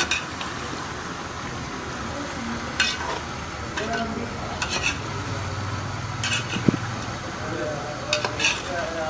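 Curry with freshly added tomatoes frying in a pot over a high flame, sizzling steadily, while it is stirred, the utensil scraping and clinking against the pot every second or two.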